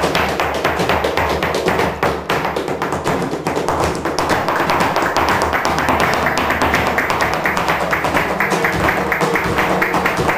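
Flamenco footwork (zapateado): heeled flamenco shoes striking the floor in quick runs of taps, over flamenco guitar accompaniment that comes up more strongly about halfway through.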